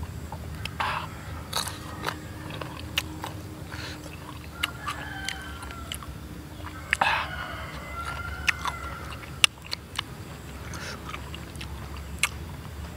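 Crisp bites and close-up chewing of raw young mango slices dipped in sambal, with many sharp crunches scattered through.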